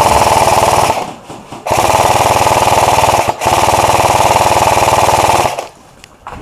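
G&P Stoner 63 (MK23) airsoft electric support gun firing long full-auto bursts of suppressive fire. One burst ends about a second in, and after a short pause another long burst runs, with a brief break partway, until it stops near the end.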